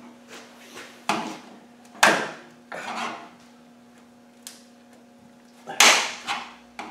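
Sharp metal clinks and taps of a screwdriver and hand tools working the screws of a Land Rover Defender's front side-light lens: about six separate knocks, the loudest about two seconds in and near the end, over a steady low hum.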